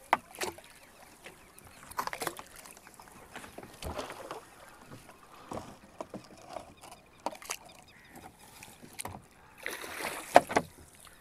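Water splashing and knocking around a small boat as a bamboo pole is pushed into the water and a fishing net is worked over the side: scattered splashes and clunks, with a louder burst of splashing about ten seconds in.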